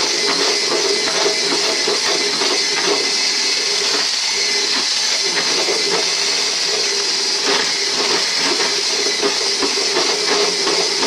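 Handheld electric blender with a whisk attachment running steadily at one speed, whisking liquid batter in a bowl: a constant motor whine with a strong hiss.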